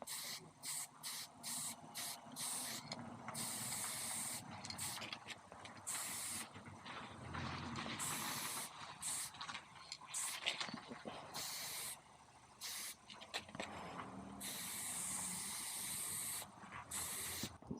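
Repeated bursts of spraying hiss. Many are quick, and a few are held for a second or two, with quiet gaps between them.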